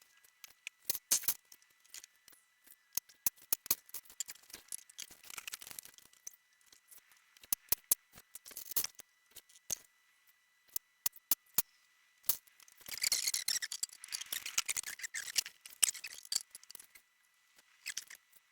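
Scattered sharp clicks and taps of small hard objects being handled, with a stretch of rustling about thirteen seconds in.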